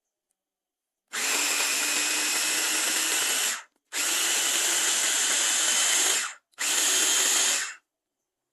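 Electric kitchen blender motor running in three short bursts, the last one shorter, each starting and stopping abruptly.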